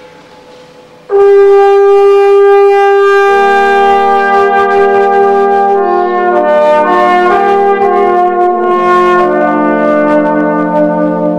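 Trombone quartet playing slow, held chords. A single trombone note starts about a second in, the lower parts join about two seconds later, and the harmony then moves note by note.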